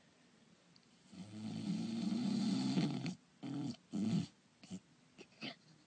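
Voiced cartoon-style snoring. After about a second of quiet comes one long snore of about two seconds, then two short snores and a few faint ones near the end.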